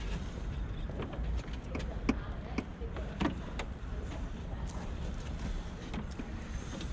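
Scattered light clicks and knocks of door parts being handled while a Tesla Model 3 door window is refitted, over a steady low hum. One sharper knock comes about two seconds in.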